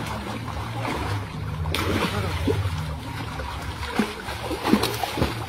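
Fish thrashing and splashing in shallow water inside a drawn net, with sharper splashes about two seconds in and again twice near the end.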